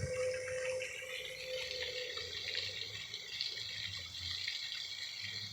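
Running water from a small waterfall: a steady splashing hiss.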